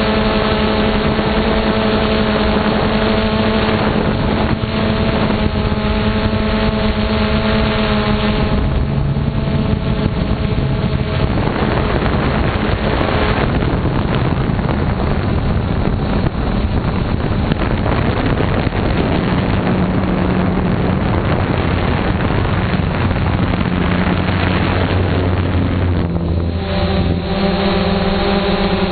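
Motor and propeller of a small camera-carrying model aircraft running close to the microphone, a steady pitched hum over rushing wind noise. The hum's pitch shifts a few times, around 9 and 11 seconds in and again near the end.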